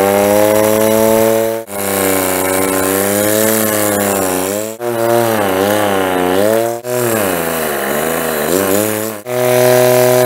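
Small 12 V DC-motor rotary vane air-horn compressor running in about five bursts of a couple of seconds each, a loud buzzing drone whose pitch wavers and sags before a last steadier run. It is still not running perfectly: the bench supply's current limit cuts its voltage to about 6 V.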